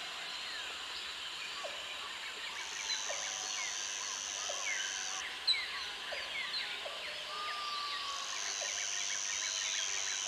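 Outdoor bush ambience: many birds chirping and calling over one another, with a steady high buzz that switches on and off in long stretches and a longer whistled note near the end. A sharp click about five and a half seconds in.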